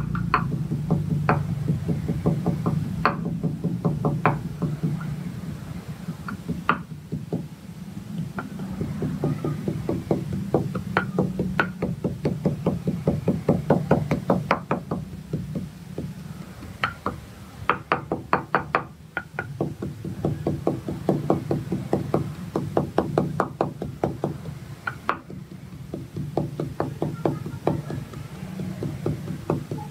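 Wooden pestle pounding garlic in a clay mortar: a fast, steady run of knocks, several a second, with a few short pauses.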